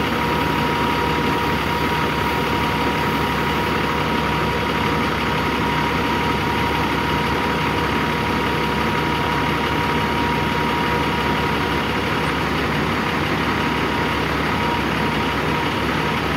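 A Peterbilt 357 crane truck's 15-litre six-cylinder diesel idling steadily, with a thin, steady high whine over the engine.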